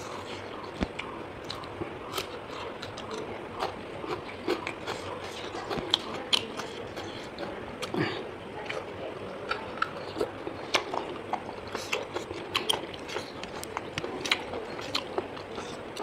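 A person chewing and biting food close to the microphone: many irregular sharp clicks and crunches over a steady background hiss.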